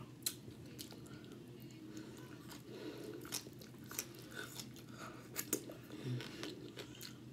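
Close-up chewing and biting of a baked asparagus spear, with scattered sharp clicks and crunches from the mouth. A steady low hum runs underneath.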